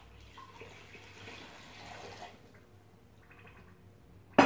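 Water poured from a glass jug into an aluminium pot of granulated sugar, an even splashing pour for about two seconds that then dies away. A sharp clatter comes right at the end.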